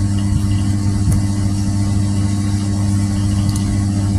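A steady low hum with a buzz, unchanging throughout.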